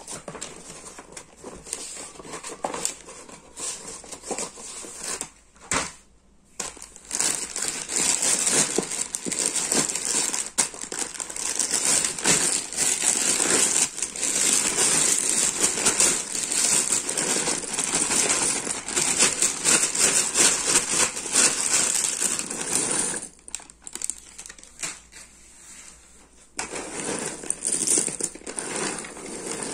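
A plastic bag of cardboard jigsaw puzzle pieces crinkling as it is handled, with loose pieces rustling and clicking as they are poured into a cardboard box tray. It is quieter with a few light knocks at first, busiest through the middle, and pauses briefly near the end before starting again.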